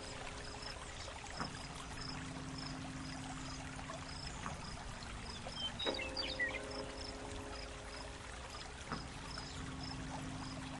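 Background ambience track: a steady soft watery hiss with faint short high chirps about twice a second, under low held tones that change with a click three times.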